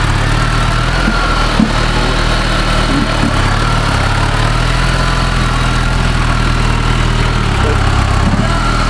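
Engine of a modified off-road trials 4x4 running steadily at low revs as it crawls over rough ground, with one sharp knock about a second and a half in.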